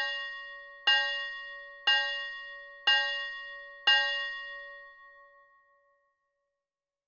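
A clock striking on a bell-like chime: five strokes about a second apart, the last one ringing on and fading away.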